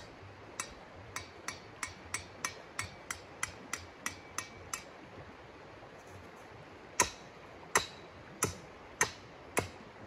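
Hammering: about a dozen quick, light strikes with a faint metallic ring, about three a second, then after a pause five louder blows.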